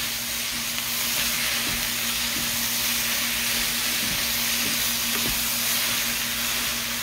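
Squid stir-fry with onions, carrots and green onions sizzling steadily in a nonstick wok over high heat as it is stirred with chopsticks, with a few soft knocks along the way.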